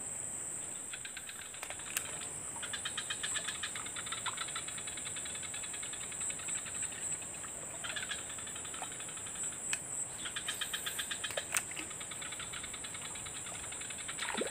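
Insects calling: a steady high-pitched drone with several bouts of rapid pulsing trills, and a few sharp clicks.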